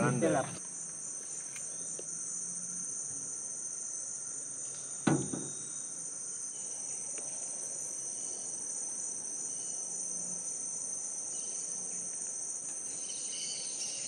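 Steady, high-pitched chorus of rainforest insects, holding two pitches without a break. A single knock sounds once about five seconds in.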